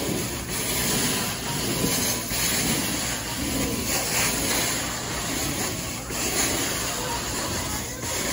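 Carpet extraction wand's vacuum hissing as the floor tool is pulled across carpet, drawing up cleaning solution and air, with the noise rising and falling from stroke to stroke.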